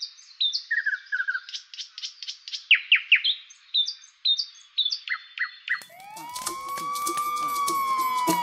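Bird chirps and tweets, a quick run of short calls, for about the first six seconds. Then a fire-engine siren wail rises and slowly falls, over upbeat music with a steady beat.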